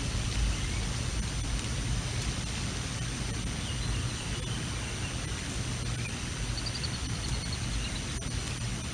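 Strong wind on an outdoor nest-camera microphone, a steady low rush. A small bird sings a few faint, high, quick notes a few seconds in and again about two-thirds of the way through.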